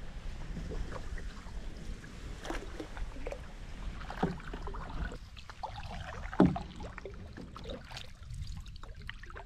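Canoe paddle strokes in calm lake water: the paddle dips and pulls every second or two with small splashes and drips, and one sharper knock about six and a half seconds in.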